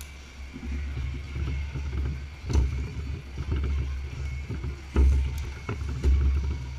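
Low rumble of handling noise with a few sharp clicks and knocks, about three in all, from plastic Heroclix booster packs and figures being handled and opened.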